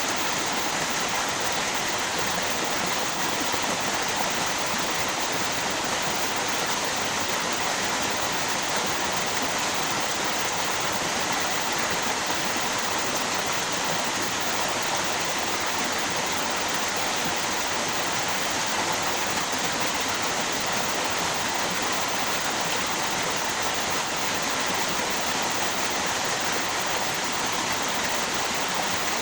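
Flowing water of a river or small waterfall, rushing as a steady, even hiss without any change.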